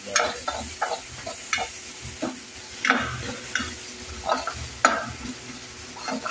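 Steel ladle stirring and scraping chopped tomatoes and spices in a stainless steel kadhai, with irregular scrapes and knocks against the pan over the steady sizzle of frying oil.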